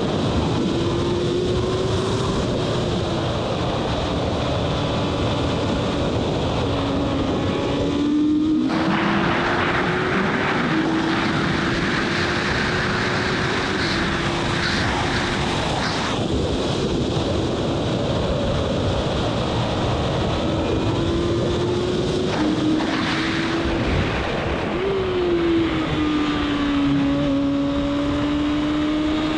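Formula Gloria racing car's 1000 cc Yamaha engine at full racing speed. Its note climbs and drops back several times through the gears, with a sharp rise and fall about 25 seconds in, over steady wind rush on the onboard microphone.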